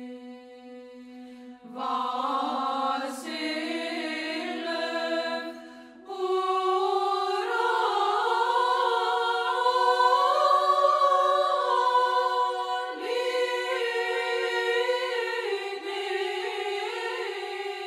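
Background music: a choir chanting unaccompanied in slow, held notes. A single sustained note sounds at first, more voices join about two seconds in, and a fuller choir comes in around six seconds.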